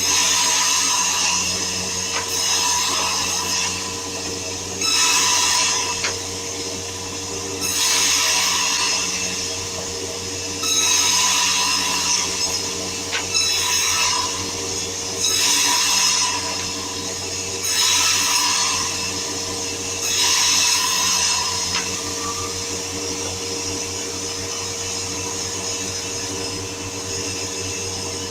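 Woodworking machine running steadily, cutting into wood in a series of about seven short passes roughly every two and a half seconds. The cuts stop a little past two-thirds of the way through, leaving the machine running alone.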